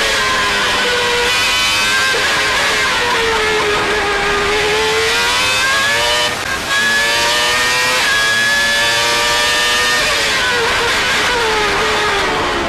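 McLaren's Mercedes V10 Formula One engine at racing speed, heard onboard: a loud, high engine note whose pitch falls as the car slows for a corner a few seconds in, then climbs back under acceleration and holds high before falling and rising again near the end. There is a brief drop in level about six seconds in.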